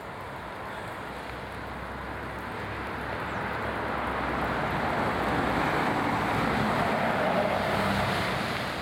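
A car passing by, its tyre noise swelling for about five seconds and fading near the end.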